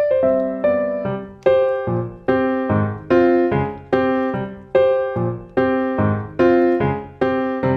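Background music: a gentle keyboard piano melody of struck notes and chords, each note fading after it is played, in an even, unhurried rhythm.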